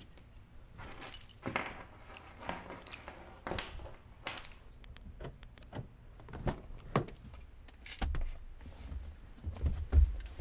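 A set of car keys jangling as they are handled, with scattered small clicks and knocks, and a couple of dull thuds near the end.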